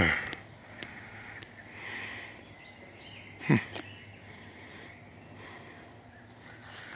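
Quiet woodland ambience with faint, short, high bird chirps scattered through it and a couple of light clicks about a second in. About three and a half seconds in comes one brief, louder noise.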